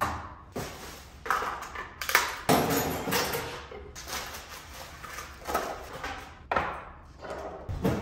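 Plastic bags rustling and crinkling, with containers and bottles knocking as kitchen clutter is gathered up and bagged. The sound comes in a string of short, irregular bursts.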